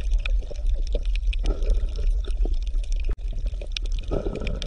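Water sloshing and lapping, with irregular small splashes and drips over a steady low rumble.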